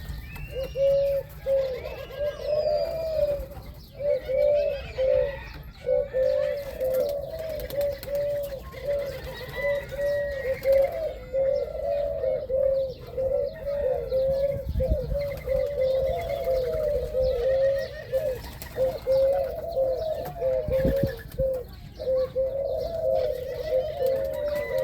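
A flock of doves cooing continuously in short, overlapping phrases, with a few higher chirps from other small birds now and then.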